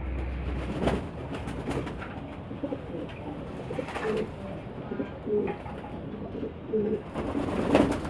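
Domestic pigeons bathing in a shallow basin of water, wings flapping and splashing in it with a few sudden splashes, the loudest near the end, while the flock coos throughout.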